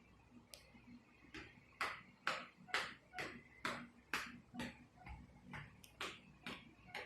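A steady run of sharp clicks, about two a second, starting about a second in and keeping an even beat; one click near the middle is weaker.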